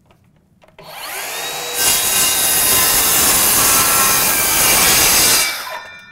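Makita X2 36-volt cordless brushless rear-handle circular saw spinning up with a rising whine about a second in, then cutting through stacked 2x4 lumber for about three and a half seconds. When the trigger is released, the electric brake stops the blade quickly.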